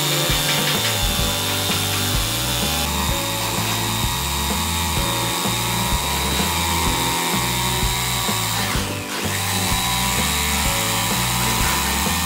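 Background music with a stepping bass line, over the steady running of a woodworking power tool with a thin high whine.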